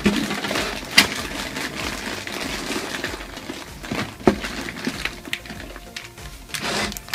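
Blind-bag packets and capsules rustling and crinkling as a hand rummages through them in a bucket, with a few sharp clicks as items knock together, one about a second in and two around four seconds in.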